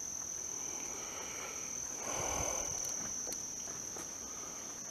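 Steady high-pitched chorus of crickets, with a brief louder scuff about two seconds in.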